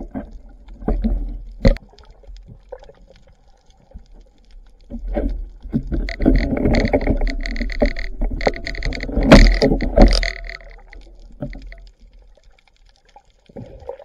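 Underwater recording of a wooden speargun being handled and reloaded, its rubber bands pulled back: scattered knocks and clicks. A louder stretch of muffled noise with a few steady tones runs through the middle.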